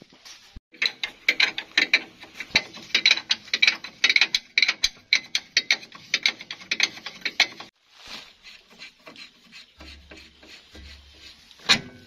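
Ratcheting wrench clicking rapidly as a nut on a concrete mixer's clutch linkage is turned, stopping about eight seconds in. Quieter metal handling follows, with one sharp metallic knock near the end.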